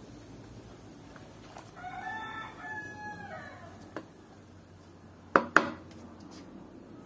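A rooster crows once, a long call about two seconds in. A little past five seconds come two sharp knocks, the louder sound, as the wooden stirring stick strikes the aluminium pot.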